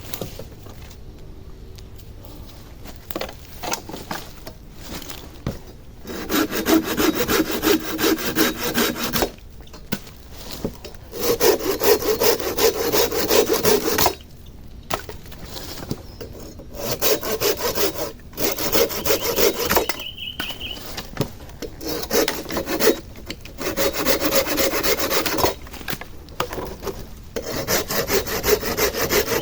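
Hand saw cutting wood in about seven bouts of quick, even back-and-forth strokes, with short pauses between bouts.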